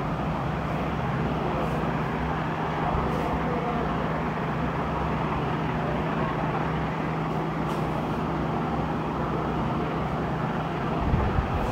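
Room air conditioner running: a steady low hum under an even rushing noise. The hum drops out near the end.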